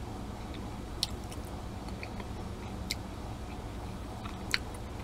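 A person chewing a piece of century egg (preserved duck egg) with the mouth closed: soft mouth sounds with a few sharp clicks, over a steady low hum.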